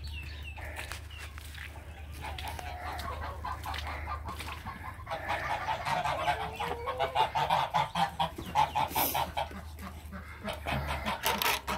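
Domestic geese honking in a rapid, repeated series, starting about two seconds in and growing louder midway.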